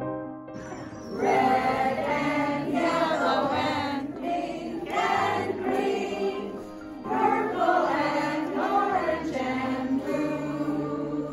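Soft piano music ends under a second in, and a group of adults sings a song together in phrases, their voices over a low steady accompaniment.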